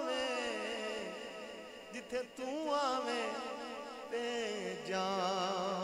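A male naat reciter singing devotional verse, drawing out long wordless notes that waver with heavy vibrato, with a brief break about two seconds in.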